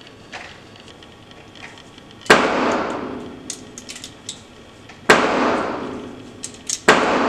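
Three gunshots ringing out with a long echo in an indoor range, the second about three seconds after the first and the third under two seconds later. In between come light clicks of 9mm cartridges being pressed into a Glock 17 pistol magazine.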